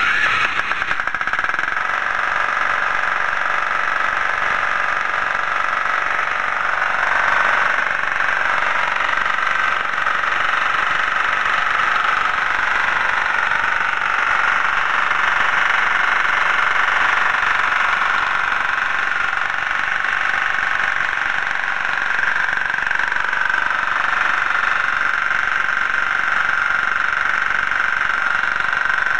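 Winsun 186F 13 hp single-cylinder air-cooled diesel engine (456 cc) running steadily at half throttle, having just started on its electric starter.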